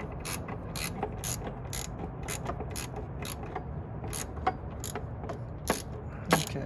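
Ratchet wrench clicking about twice a second in short back-and-forth strokes as it turns a 5 mm ball-end hex bit on a flexible extension, backing out a loosened diverter-valve bolt.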